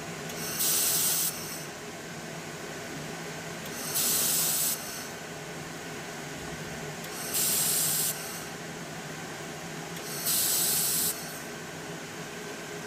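2000-watt air-cooled handheld laser welder firing four short welds on 18-gauge stainless steel, each under a second and about three seconds apart. Each is a burst of hissing from the shielding gas and weld, over a steady background hum.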